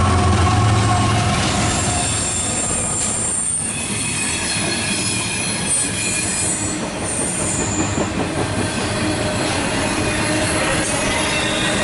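A diesel freight train passing close by. The locomotive's engine drone goes past in the first second or two, then the freight cars roll by with continuous wheel and rail noise and a steady high-pitched wheel squeal.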